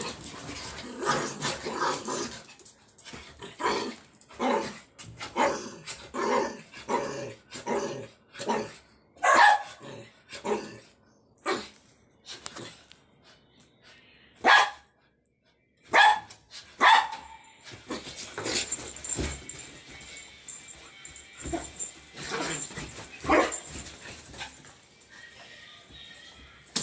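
Dogs barking repeatedly, a short sharp bark about every second. A few are much louder, and the barking turns softer and sparser in the second half.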